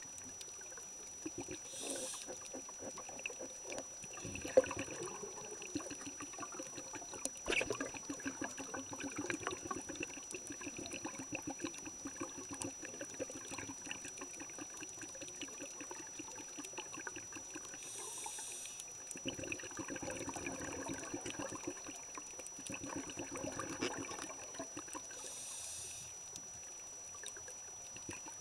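Muffled underwater sound picked up through a camera's waterproof housing: a continuous crackle, with a hissing rush of scuba bubbles three times, and a faint steady high whine.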